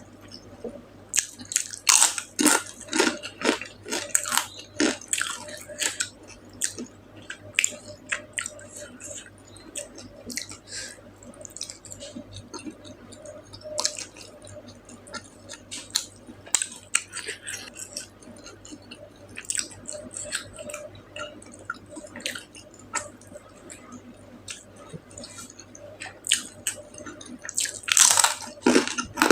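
Close-miked chewing of food: irregular wet mouth sounds with sharp clicks and smacks, busiest early and again near the end.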